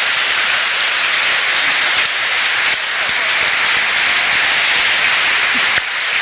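Large crowd applauding and cheering at a rally: a loud, steady, dense noise with a brief dip near the end.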